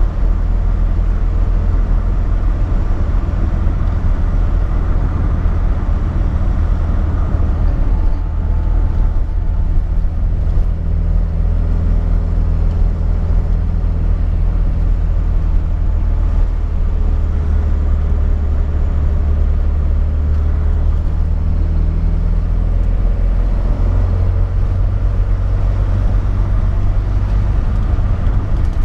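1974 BMW 2002's M10 two-litre four-cylinder on a Solex 40 PHH carburettor, running under way with road noise: a steady low engine drone whose pitch shifts about eight seconds in and again near the end.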